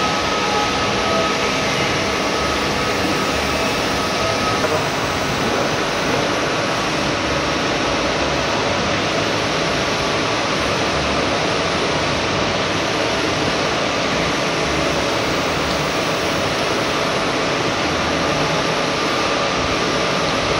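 Milling machine running steadily while cutting teeth in a steel bevel gear blank on a dividing head, with a constant wash of noise from the machine and the cutting fluid splashing over the work. A faint steady whine sits over it in the first couple of seconds.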